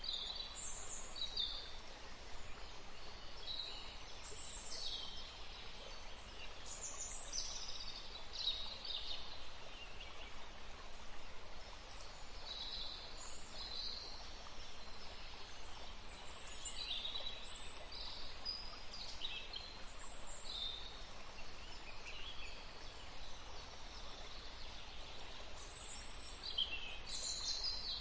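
Birds chirping, with many short, high chirps and quick calls scattered throughout over a steady background hiss of outdoor ambience.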